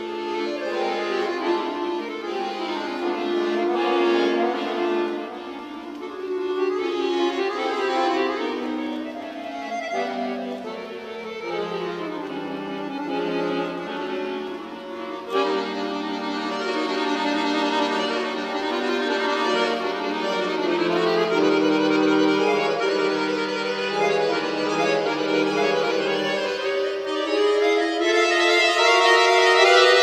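Bayan (Russian chromatic button accordion) playing a fast concert piece solo: quick runs of notes sweeping up and down, then held chords with rapid notes above them, getting louder near the end.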